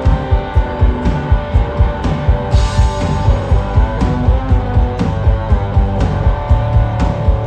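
Live rock power trio playing loud: electric guitar and bass over a drum kit, with a steady beat of about four drum hits a second and a cymbal crash about two and a half seconds in.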